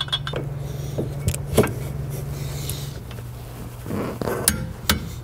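A few sharp metallic clicks and taps as a wrench and socket go onto the secondary clutch bolt and tighten it, over a steady low hum that drops slightly in pitch about three seconds in.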